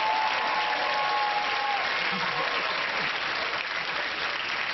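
Studio audience applauding, easing off slightly near the end.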